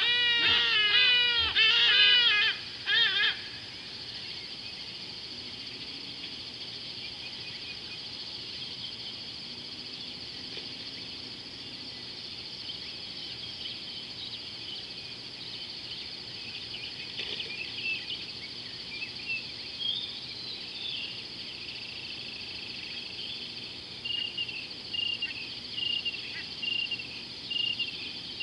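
An animal calls loudly several times in quick succession, each call rising and falling in pitch, stopping about three seconds in. After that a steady high-pitched insect chorus carries on, with scattered chirps joining in over the second half.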